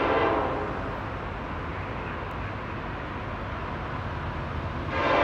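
Nathan K5LLA five-chime air horn on a Norfolk Southern EMD SD70ACE locomotive: one blast cuts off about half a second in, leaving a low steady rumble from the approaching train, and the next blast starts near the end.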